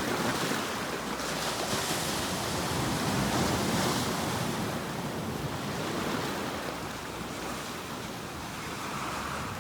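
Ocean waves breaking and washing on a shore in a steady rush, swelling around the first few seconds and easing off after the middle.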